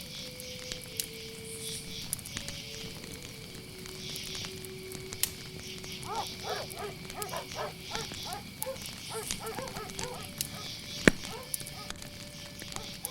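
Layered night ambience: crickets chirring steadily under the sharp crackle of a wood fire, with one loud pop about eleven seconds in. Between about six and ten seconds a run of short animal calls comes through.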